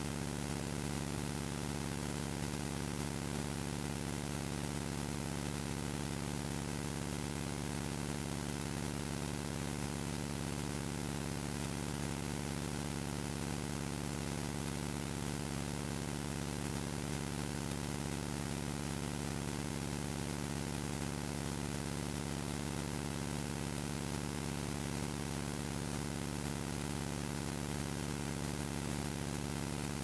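A steady, unchanging hum made of several held tones, like a motor or engine running.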